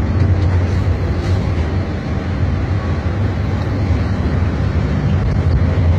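Intercity coach at speed heard from inside the cab: a steady low engine drone mixed with road and wind noise.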